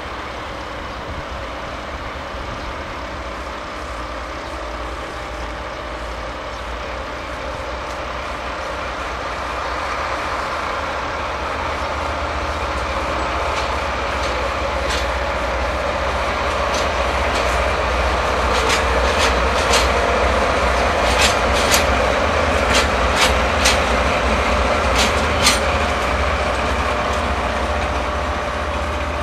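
A train moving through a station yard: a steady rumble grows louder, and in the second half the wheels click sharply over rail joints about a dozen times, unevenly spaced.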